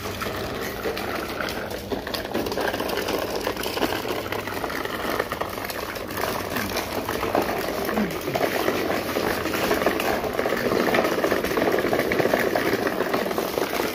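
Small bicycle with training wheels rolling over paving stones: a steady crackling rattle from the tyres and small wheels, a little louder in the second half.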